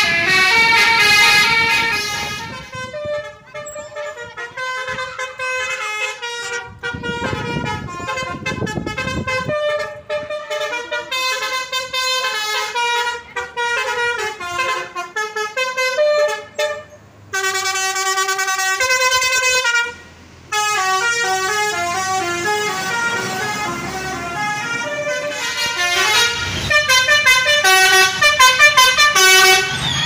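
Basuri telolet musical air horns on tour buses playing rapid, stepping multi-note melodies, loud and sustained, one bus after another.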